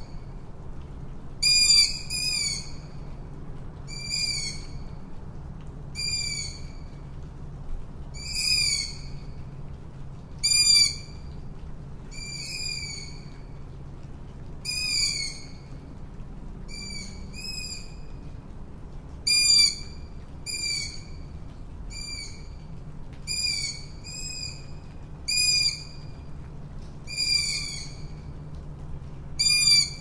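Tawny owl giving short, sharp pitched calls, roughly one a second, over a faint low steady rumble.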